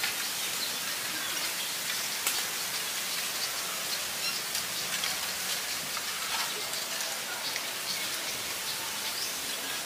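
Small wood fire crackling under a pot of rice: a steady hiss with many small sharp crackles.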